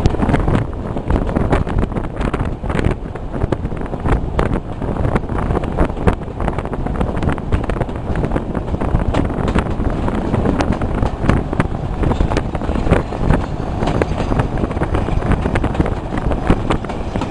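Wind buffeting the microphone held out of a moving railway carriage window, over the steady running rumble of a train hauled by Class 46 diesel D182 (46045).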